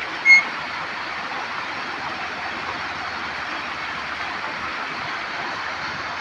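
Kopili river floodwater rushing fast through a breached road, a steady even rush of water. About a third of a second in, a single brief high whistle-like tone sounds over it, the loudest moment.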